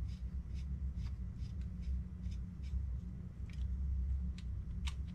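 Hex driver turning small screws into a carbon-fibre drone frame: light, irregular clicks and ticks of metal on metal and plate handling, several a second, over a steady low hum.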